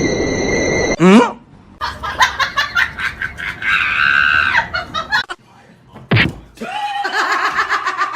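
People laughing and shrieking in quick bursts, with a short high rising squeal about a second in. The sound breaks off suddenly a couple of times.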